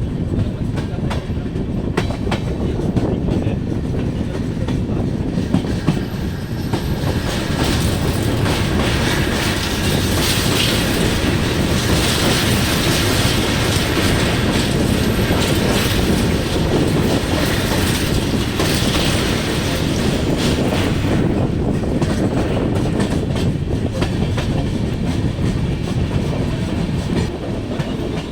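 Passenger train running at speed, wheels clattering over the rail joints over a steady rumble, with a louder rushing hiss through the middle stretch.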